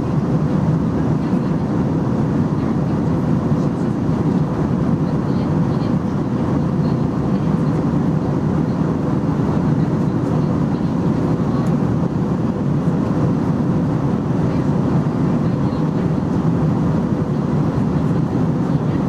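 Steady in-flight cabin drone of an Airbus A321-211 (CFM56 turbofans and airflow over the fuselage), heard inside the cabin. It is an even, low rushing noise with a faint steady hum and does not change.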